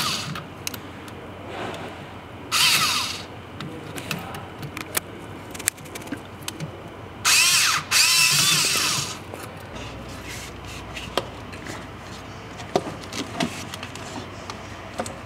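Power tool whirring in two bursts, a short one about two and a half seconds in and a longer one of about two seconds near the middle, its pitch rising and falling as it spins up and down, while the air-intake hose clamp on a Cummins turbo is being undone. Small clicks and knocks of tools on metal between the bursts.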